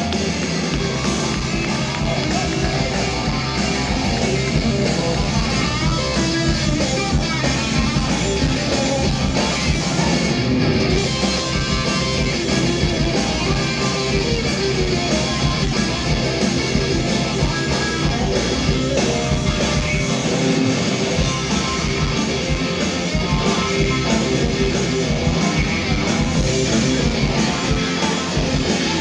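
Live rock band playing continuously: electric guitar, bass guitar and drum kit, amplified through a festival PA.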